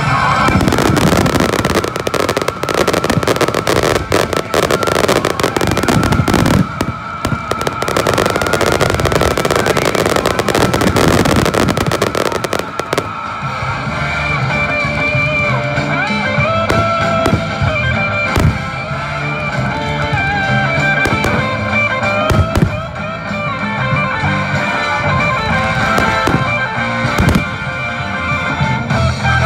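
Fireworks display with music playing throughout. For the first dozen or so seconds a dense crackling of sparks dominates, after which the music comes forward with a few single sharp bangs.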